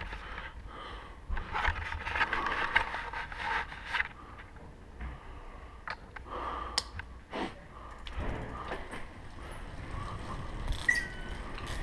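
BMX bike rattling over cobblestone paving, with scattered sharp clicks, knocks and scraping noises and a brief squeak near the end.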